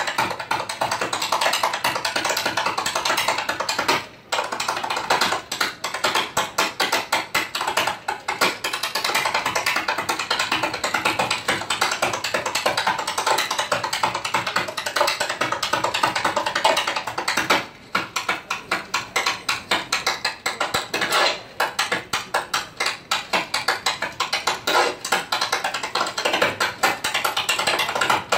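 Tap dancing: metal taps on shoes striking a stage floor in fast, dense rhythms. Two short breaks come about four seconds in and about eighteen seconds in.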